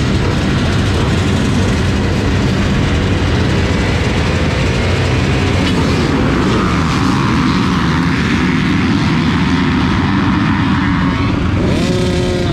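Dirt bikes running together at a motocross starting gate, their engines revving up and down while waiting for the gate to drop. Near the end, one engine revs up sharply.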